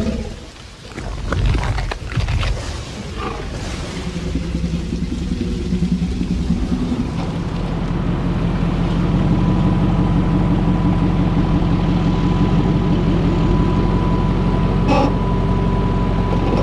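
Heavy thuds and rumbling from a movie T-Rex scene in the first few seconds. Then a Chevy square-body pickup's engine runs steadily at low revs as the truck crawls over rock, with a steady high whine over it and a single knock near the end.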